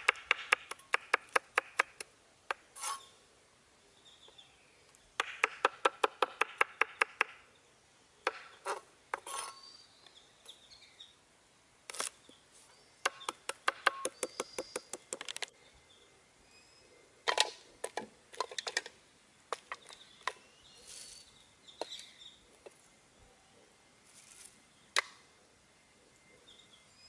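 Steel cleaver chopping green chillies and garlic on a wooden cutting board: quick runs of sharp knocks, about six a second, with pauses between the runs, then a few single chops.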